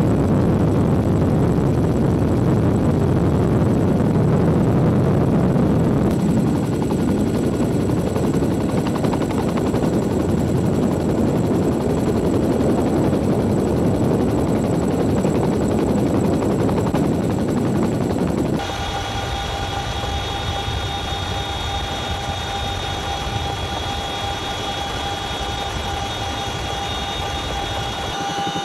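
CH-47 Chinook twin-engine tandem-rotor heavy-lift helicopter in flight, a loud, steady deep rotor and engine noise. About 18 seconds in it cuts to a quieter sound with steady high-pitched whining tones over it.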